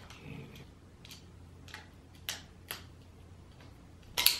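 A screwdriver tightening the ring screws on a small 4x15 rifle scope: scattered light metallic clicks and ticks, about one every half second to second. A louder burst of noise comes right at the end.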